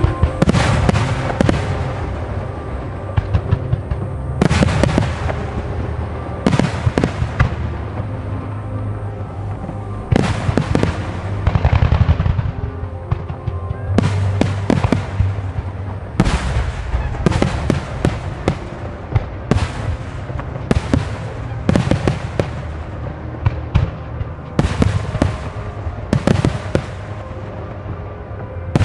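Fireworks starmine: dense volleys of shells bursting and crackling in rapid succession, a new burst of bangs every second or two over a low rolling rumble, with music playing underneath.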